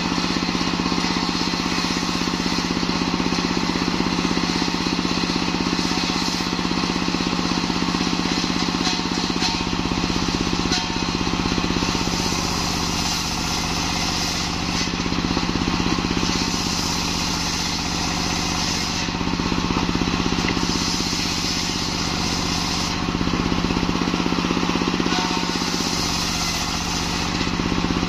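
Small single-cylinder diesel engine running steadily under load, driving a large circular saw blade that rips lengthwise through a log of kembang kantil (white champaca) wood. The high cutting noise rises and falls a few times as the log is pushed through the blade.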